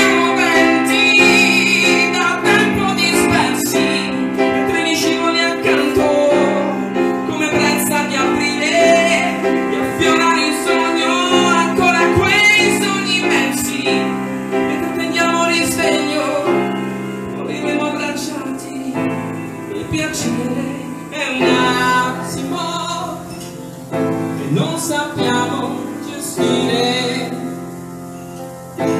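A song performed live: a grand piano playing chords under a sung melody, with a woman singing.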